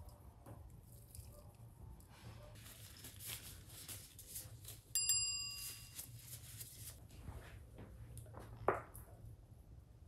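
Black gloves being pulled onto the hands, with soft rubbery rustling and a sharp snap near the end. About halfway through, a short metallic ping rings and fades over about a second.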